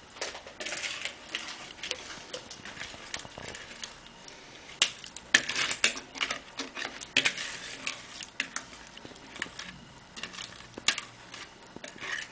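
Wire whisk scraping and clicking against the inside of a plastic mixing bowl as thick cake batter is scraped out into a cake tin, in irregular strokes and taps, busiest in the middle.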